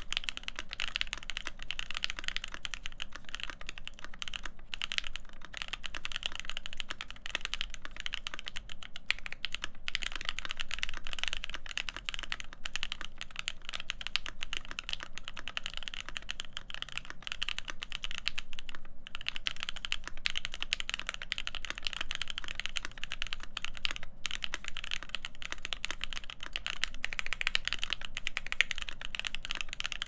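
Steady touch typing on an AEBoards Constellation mechanical keyboard fitted with Krytox-lubed Alpaca v2 linear switches, a full FR4 plate, an O-ring mount and Hammerworks CRP keycaps. It makes a dense run of key strikes, with a few short breaks.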